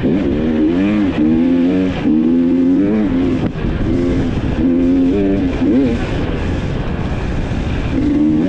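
GasGas EX 300 two-stroke enduro bike engine under way off-road, its pitch rising and falling over and over as the throttle is blipped and rolled off.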